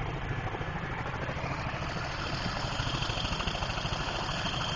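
Tandem-rotor military helicopter running on the ground, with a steady rapid rotor beat and turbine noise. A high whine comes up about two seconds in.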